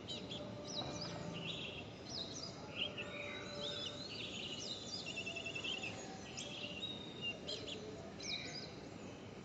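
Several birds chirping and whistling over a steady background hiss, with a short rapid trill of repeated notes about five seconds in.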